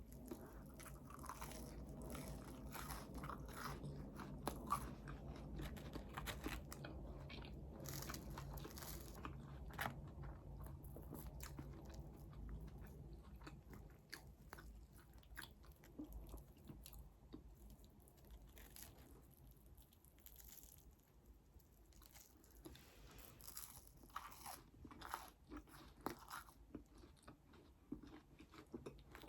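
Close-miked eating: a person biting and chewing crunchy food, with many short crackling crunches. The crunches are busier and louder in the first half, then come sparser and quieter.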